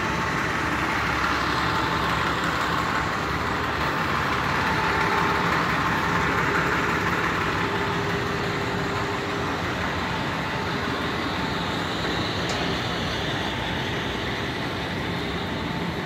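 A parked fire department ladder truck's diesel engine running steadily at idle, a low even hum under a steady hiss of road traffic.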